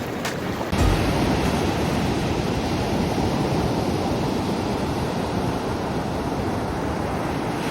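Sea surf washing onto a beach, an even, steady rush of noise.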